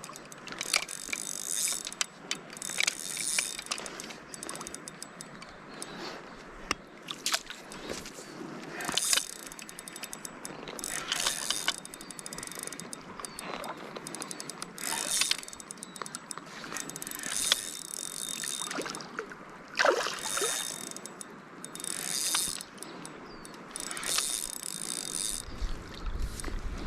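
Fishing reel being worked in irregular bursts, its gears and drag ratcheting and whirring, while a strong rainbow trout fights on the line.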